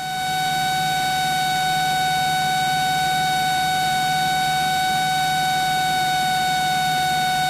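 Steady in-flight cabin noise of a float-equipped Cessna 172: the engine and propeller drone under a constant high-pitched whine that holds one pitch throughout.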